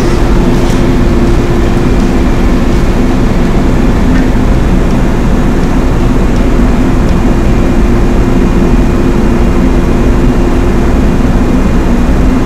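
Loud, steady drone of running machinery in a ship's machinery space, with a few steady low hums under an even roar.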